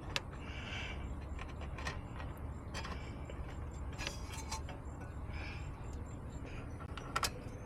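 Scattered light clicks and taps of hand tools and metal parts being handled, over a low steady hum.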